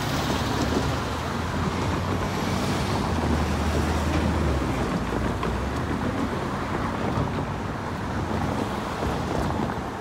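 Road traffic passing close by, a pickup truck and then a car, with engine and tyre noise and a low engine drone strongest a few seconds in; wind buffets the microphone throughout.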